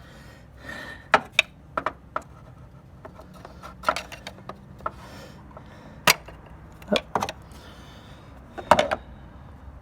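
Hand tools and plastic engine parts being handled during PCV oil separator work, giving scattered sharp clicks and taps at irregular intervals.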